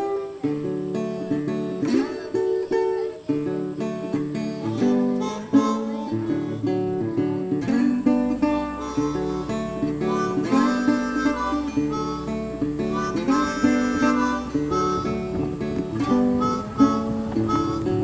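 Background music: acoustic guitar playing with a harmonica carrying held, bending notes over it.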